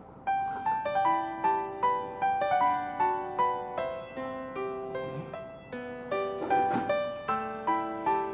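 Background music: a gentle piano melody of separate struck notes, about three a second, starting just after a short pause.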